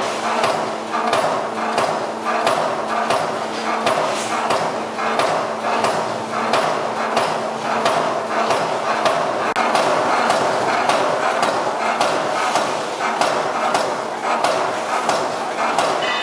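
Finn-Power F5-25 SB CNC turret punch press punching sheet metal: a rapid, even series of sharp punch strokes, about three a second, over a steady machine hum.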